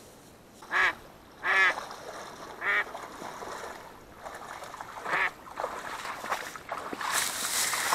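Live decoy duck quacking four times, short separate quacks spread over the first five seconds. Near the end come the splashing and rustling steps of someone wading through shallow water and wet grass.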